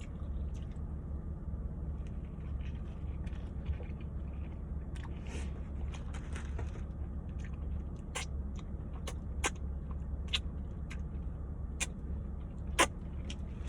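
Close-miked chewing of a messy steak and cheese sub: wet mouth clicks and smacks, scattered about once a second from midway, the loudest near the end. A steady low hum lies under it.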